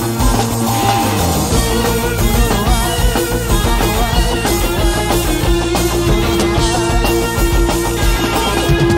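A rock band playing live: electric guitars, bass and drums, with a long held note from about a second and a half in.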